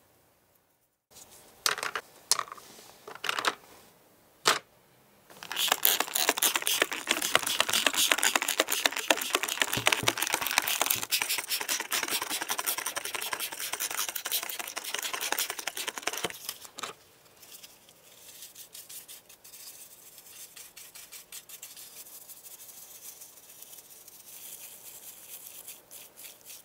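Stiff bristle brush scrubbing model-car parts in foamy cleaner. A few short strokes come first, then about eleven seconds of dense, loud scrubbing, then lighter, quicker strokes near the end.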